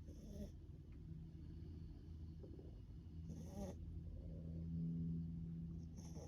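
Pomeranian–Chihuahua mix dog snoring softly: a low, drawn-out snore that is loudest about two-thirds of the way in, with a short, sharper breath sound about every three seconds.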